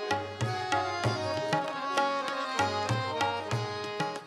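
Instrumental ghazal interlude: a sitar plays a melodic phrase over tabla strokes, with no singing. The music dips briefly near the end.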